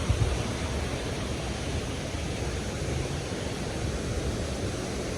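Steady rushing of water falling at a small waterfall: an even, unbroken roar with no change through the stretch.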